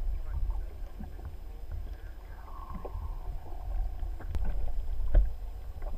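Underwater camera audio: a low rumble of water moving against the camera housing, with scattered knocks, the loudest about five seconds in. A faint falling tone sounds about two and a half seconds in.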